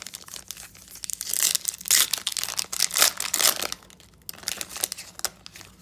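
Foil wrapper of a trading card pack crinkling and tearing as it is ripped open, loudest and busiest in the middle.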